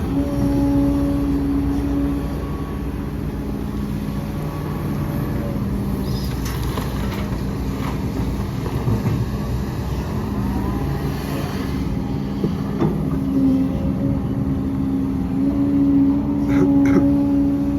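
Diesel engines of earthmoving machinery running, their pitch rising and falling with the load, with a couple of sharp knocks near the end.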